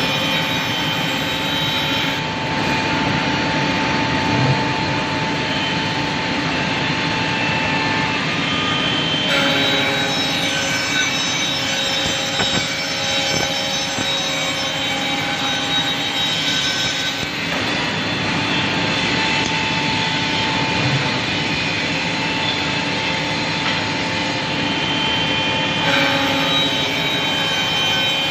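CNC scroll saw running and cutting wood: a steady mechanical noise with faint whining tones over it, changing abruptly a few times.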